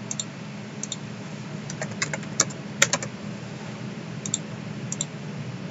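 Computer keyboard keys clicking in irregular taps, with a quick run of typing around the middle and a few lone keystrokes near the start and end.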